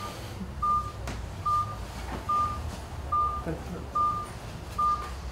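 Zoll X Series monitor/defibrillator giving a short beep at one pitch, evenly repeated a little more than once a second. It is the monitor's heart-rate (QRS) tone, sounding with each beat of the ECG it is reading.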